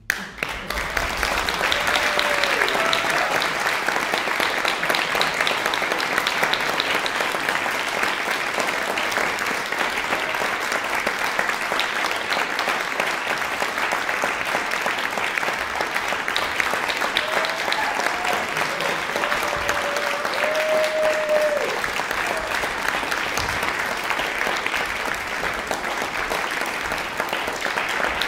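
Audience applause breaking out the moment the music ends and carrying on steadily, with a shout or two of cheering among the clapping.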